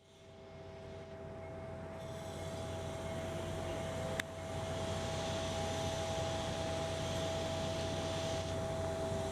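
Steady mechanical hum of construction-site and city machinery with a constant whine through it, fading in over the first couple of seconds; a single sharp click about four seconds in.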